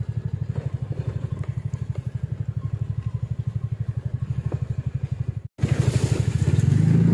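Motorcycle engine running at low speed with a fast, even throb. About five and a half seconds in, the sound cuts out for a moment, then comes back louder and rougher.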